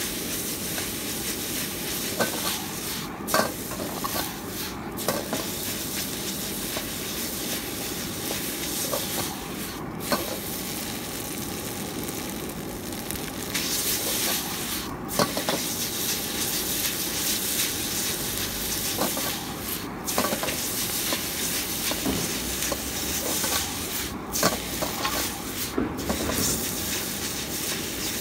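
Noodles sizzling in a hot wok as they are stir-fried, with a steady hiss and a metal ladle clanking and scraping against the wok every few seconds.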